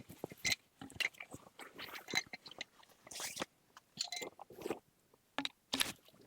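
Close-up irregular crunching and crackling, a quick series of short sharp crunches at uneven spacing.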